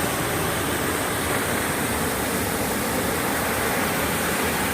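Waterfall's rushing water, a steady even roar with no change.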